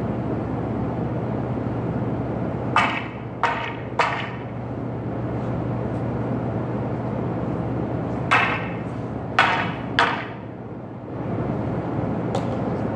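Wooden half staffs clacking together in sparring: two quick runs of three sharp knocks, one about three seconds in and one about eight seconds in, and a fainter knock near the end, over a steady low hum.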